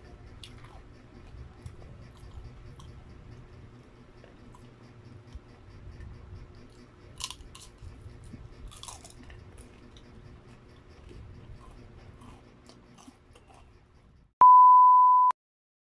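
Close-up chewing and biting of crispy fried chicken proben (breaded chicken proventriculus), with a few sharp crunchy bites around the middle. Near the end a loud, steady, high beep tone sounds for about a second and cuts off suddenly.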